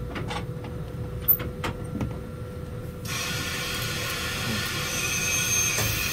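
Cab equipment of an EF63 electric locomotive: a few light clicks from the driver's controls over a low rumble, then about three seconds in a steady hiss starts suddenly and keeps going.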